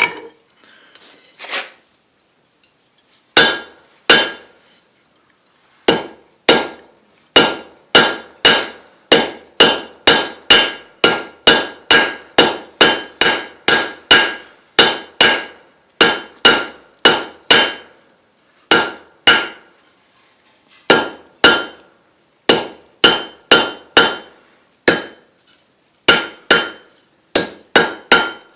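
Hand hammer striking hot 5/16 inch mild steel round stock on an anvil, a ringing clang at each blow, about two blows a second with a few short pauses; the steel is being isolated and necked back into a stem for a forged leaf. A little clinking of metal comes first, before the hammering starts about three seconds in.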